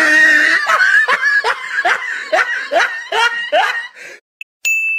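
A person laughing in a rapid run of ha-ha's, about two a second, for around four seconds. Near the end a single bright ding strikes and rings on, fading slowly.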